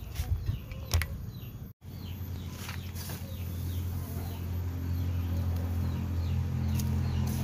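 Small birds chirping outdoors: short, high, falling chirps repeated every half second or so. Behind them a steady low hum builds up after the sound cuts out for an instant about two seconds in, with a few sharp clicks scattered through.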